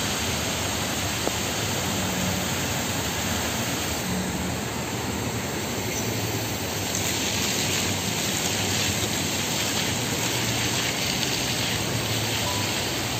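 Steady rush of water from the Fountain of Wealth, the large bronze-ring fountain, falling and flowing across its wet stone floor.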